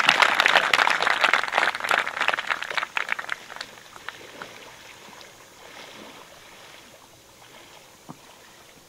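A crowd applauding, the clapping thinning out and fading over the first three or four seconds to a few scattered claps.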